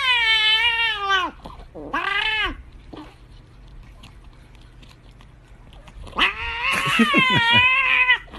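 Cat yowling in long, wavering calls while it licks at a squeeze tube of treat: one long call at the start, a short call about two seconds in, and another long call near the end.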